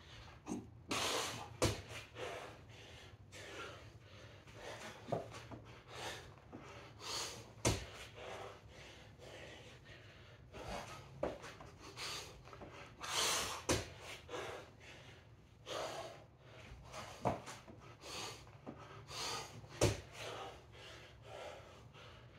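Heavy, gasping breaths of a man working through burpee-style push-up reps, with a sharp thud about every six seconds as his body meets the matted floor.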